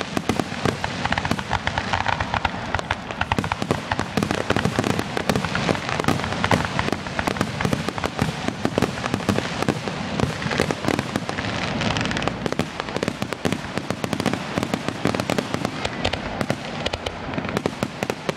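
Fireworks going off in a dense, continuous barrage of crackling bangs and pops, many per second, with no break.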